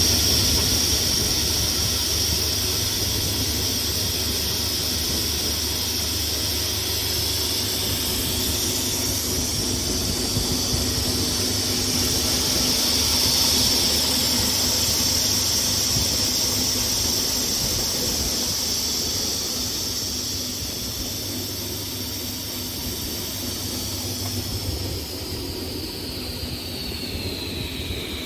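SCM SI 16 SW sliding table saw running with a steady high whine from its spinning blade over a low motor hum. Near the end the whine glides down in pitch and grows quieter as the saw begins to wind down.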